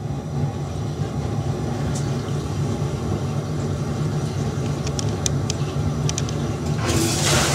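Sewage ejector pump running with a steady hum as it pushes water up its PVC discharge pipe through a standard swing check valve. Near the end, a loud burst of rushing noise.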